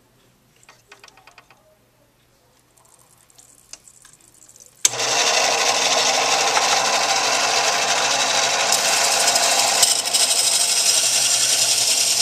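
A Precision 2000 glass-cutting bandsaw, its blade fed with water, starts up abruptly about five seconds in and then runs with a loud, steady mechanical noise. Before it starts there are only a few faint clicks of the glass bottle being handled.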